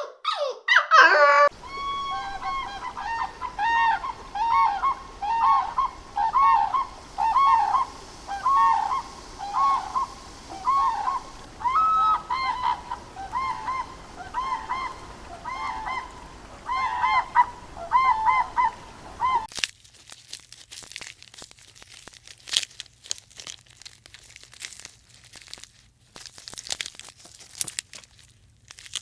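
Waterfowl honking over and over, about one arched, nasal call a second. About two thirds of the way through the honking stops suddenly, leaving quieter crackling and rustling.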